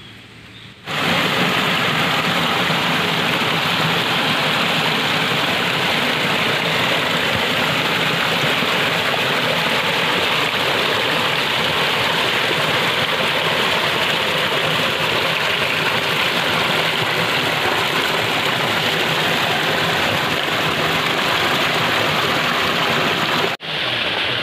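Small waterfall rushing and splashing over rocks, a steady loud wash of water that starts suddenly about a second in. Near the end it breaks off for a moment and gives way to a slightly lighter splashing of water falling into a pool.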